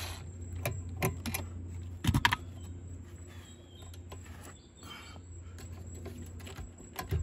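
Scattered small clicks and knocks of hands working a loosened screw and metal bracket behind a car's dash panel, loudest in a short cluster about two seconds in.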